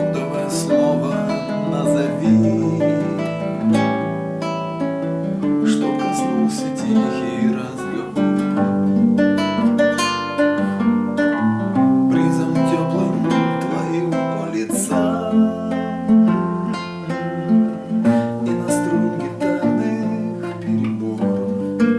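Acoustic guitar playing a song, strummed and picked chords changing every second or two.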